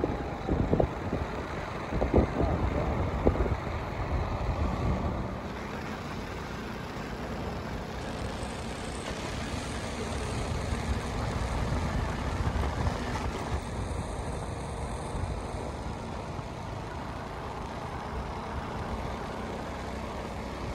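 Wind rushing over the microphone and road noise from a motor scooter on the move, steady throughout, with a few heavier gusts of wind in the first few seconds.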